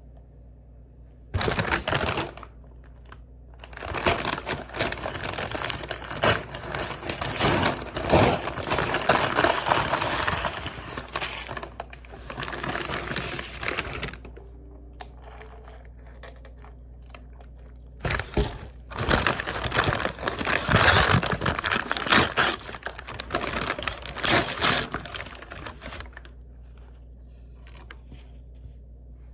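Paper food packaging being handled and unwrapped, crinkling and crackling in several long bursts with short pauses between.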